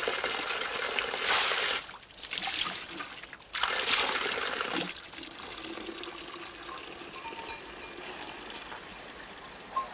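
Spring water pouring from a spout into a bucket, loud in three spells of a second or two each, broken by short gaps, over the first five seconds, then a fainter steady trickle.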